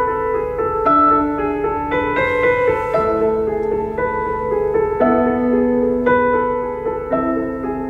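Piano music playing through the car's sound system: a slow run of held, overlapping notes.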